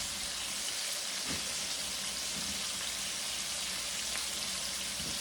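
Tri-tip steaks searing in a hot stainless steel pan: a steady sizzle of frying meat.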